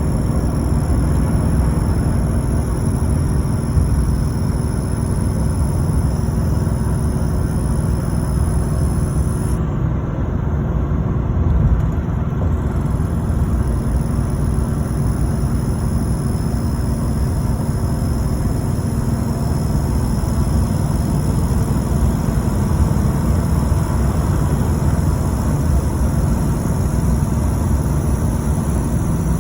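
LBZ Duramax 6.6-litre V8 turbodiesel running with a steady low rumble and a high-pitched turbocharger whine over it; the whine drops out for a few seconds about ten seconds in.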